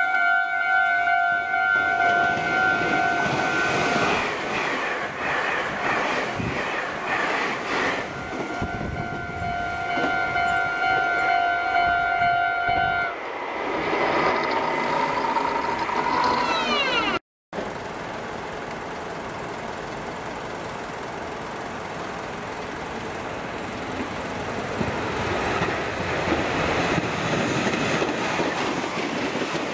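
Meitetsu 2200 series rapid limited express electric train sounding its horn in two long steady blasts as it runs through the station, with wheels knocking over rail joints between the blasts. After a cut, a passing train's wheels and running gear make a steady rumble that grows a little louder near the end.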